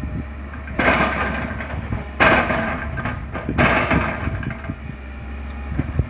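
Komatsu PC200 hydraulic excavator emptying a bucket of earth into a dump truck's steel bed: the soil pours in with three loud rushing bursts, over the steady low running of the excavator's diesel engine.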